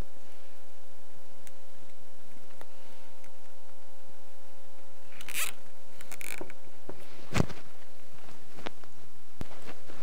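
Nylon zip ties pulled tight through their ratchet heads, giving short zipping pulls about five and six seconds in, then a sharp click.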